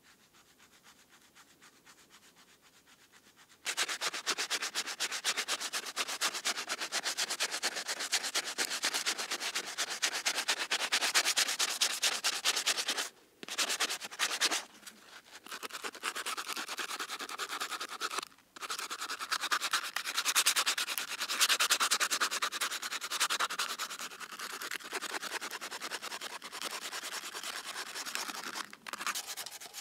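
A rusty vintage cleaver being sanded by hand, with fast back-and-forth scraping strokes. The strokes start about four seconds in and go on with a few short pauses.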